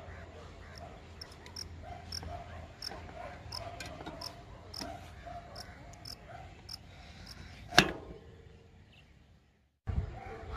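Cricket chirping in short high pips about twice a second over a faint steady background. A single sharp click comes near the end and is the loudest sound.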